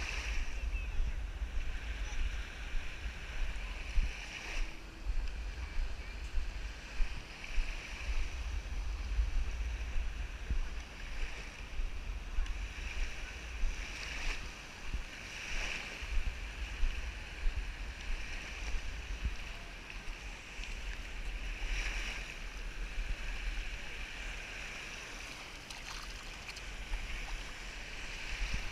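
Wind rumbling on the microphone over small waves washing onto the sand, with soft regular thumps about once a second.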